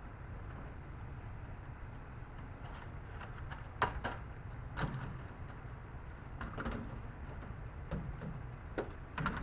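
Metal wrenches clinking and knocking against metal as they are tried on a strut mounting bolt: several short, sharp clicks spread irregularly over a low steady hum.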